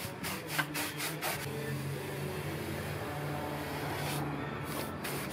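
Wide flat paintbrush scrubbing terracotta paint onto a wall in quick strokes, a scratchy swish heard several times in the first second and a half and a couple more times near the end, with a low steady hum underneath.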